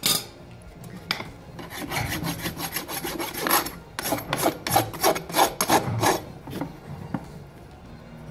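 A farrier's steel rasp being drawn across a pony's hoof wall with the foot resting on a hoof stand, dressing the hoof after shoeing: a knock at the start, then a run of quick, even rasping strokes for about four seconds that die away near the end.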